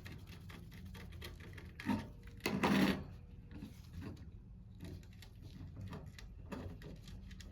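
Small clicks and ticks of wires and jumpers being handled and pressed into a circuit-board connector, with a louder scraping rasp about two and a half seconds in.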